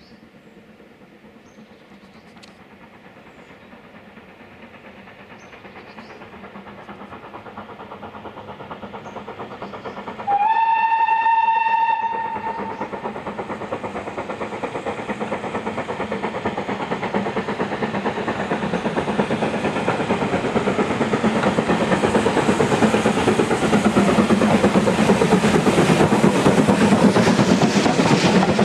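Steam-hauled passenger train approaching, growing steadily louder, with one steam whistle blast of about a second and a half some ten seconds in. The coaches then pass close by, their wheels clicking over the rails in a fast, even rhythm.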